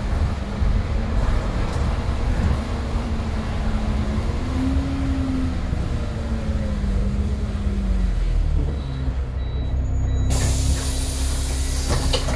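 TransBus bus with a ZF automatic gearbox, heard from inside the cabin: the engine note rises briefly and then falls away as the bus slows. About ten seconds in, a loud air hiss starts as the bus comes to a stop, with the engine idling underneath. The title calls the ZF gearbox slipping.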